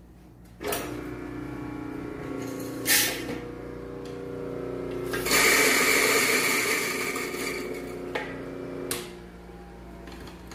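Electric coffee grinder grinding coffee beans. The motor starts just under a second in with a steady hum. About five seconds in the grinding grows louder and rougher for some three seconds, then eases off, with a few clicks.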